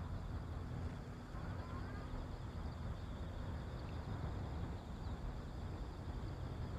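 Outdoor ambience: a steady low rumble, with a few faint bird chirps about one and a half seconds in.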